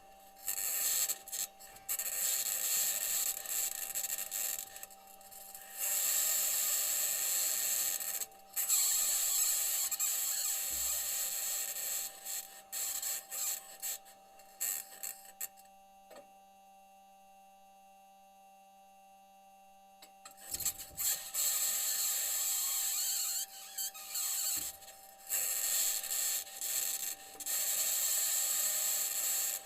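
NASA Perseverance rover driving on Mars, picked up by its onboard microphone: harsh scratchy rasping and grinding from its wheels crossing rocky ground comes and goes in stretches. It stops for several seconds in the middle, leaving only a faint steady hum of tones.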